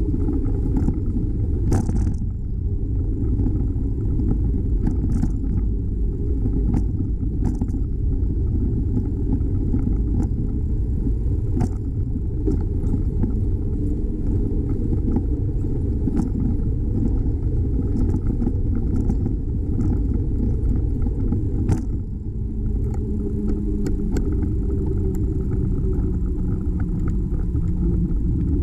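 Steady low wind rumble on the microphone of a camera carried on a moving bicycle, with faint light rattles scattered through it.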